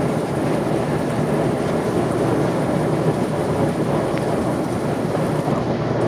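A steady, even rushing noise.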